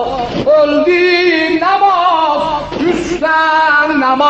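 A man singing a Shia mourning elegy in Azerbaijani into a microphone. He sings long, ornamented phrases whose pitch bends and wavers, with short breaks for breath just after the start and about three seconds in.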